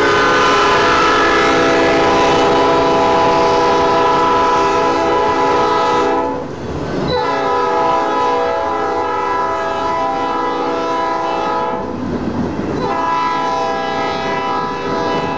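Lead Norfolk Southern SD40-2 diesel locomotive's air horn blowing long blasts, with brief breaks about six and twelve seconds in, sounding for the grade crossing ahead. Underneath, the train's wheels clatter along the rails as the cars roll by.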